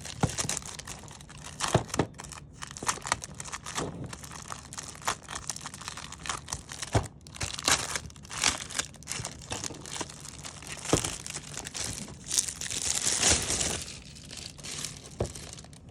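Packaging being handled and pulled open: irregular crinkling and rustling with sharp snaps and clicks, and a longer, louder rustle a little before the end.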